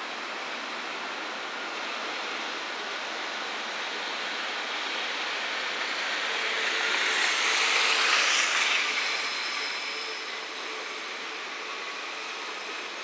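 JNR 443 series KuMoYa 443 electric inspection car rolling slowly through station pointwork. Its wheel-on-rail noise swells to a peak about eight seconds in, then eases off, with faint high squeal near the end.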